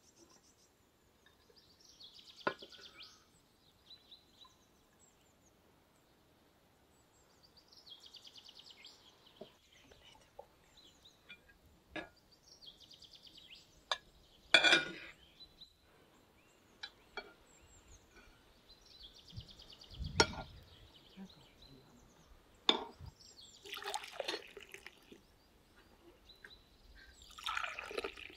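Sparse, quiet clinks and knocks of tableware, with two louder knocks midway. Near the end, liquid is poured from a glass jug into glass cups.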